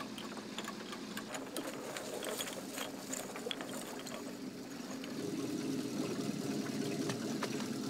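Long-tail boat's two-stroke engine running slowly while a net is paid out, with scattered light clicks over the steady drone. The engine grows a little louder about five seconds in.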